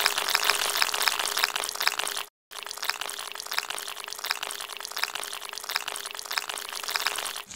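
Water sound effect of dense splashing and sloshing, full of tiny crackles. It cuts out for a moment about two seconds in, then picks up again.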